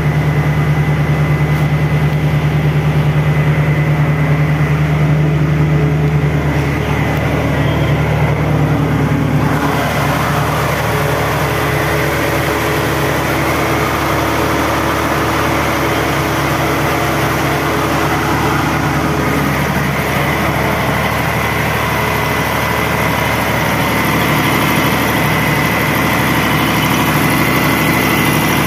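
Caterpillar diesel engine of a generator set running at a steady speed: a constant low drone with a thin, steady high tone above it. The sound grows brighter about ten seconds in.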